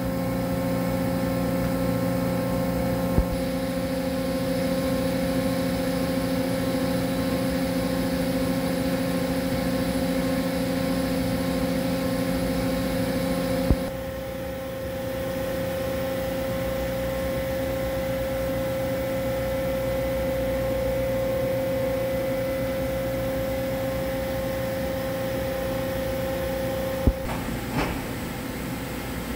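Steady electric hum and whine of a running Toyoda FA 1050 horizontal machining center, made of several fixed tones. Sharp clicks come three times, and the mix of tones changes abruptly about fourteen seconds in.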